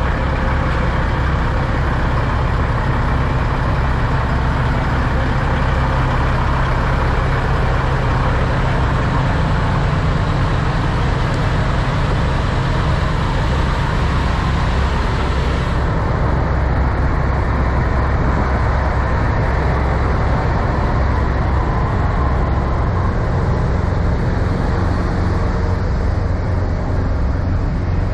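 Steady low rumble of idling semi-truck diesel engines, unchanging throughout. The higher hiss over it drops away about sixteen seconds in.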